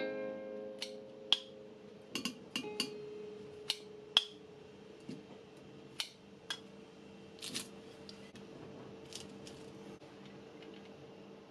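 Metal kitchen tongs clicking and tapping against a ceramic plate as grilled turnip wedges are set down: a dozen or so light, sharp clicks at irregular intervals, thinning out towards the end.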